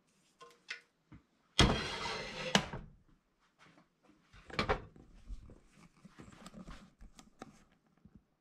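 Kitchen cookware clatter: a skillet and spatula being knocked and set down, with a loud clatter about a second and a half in, another sharp knock at about the middle, and smaller knocks and rattles around them.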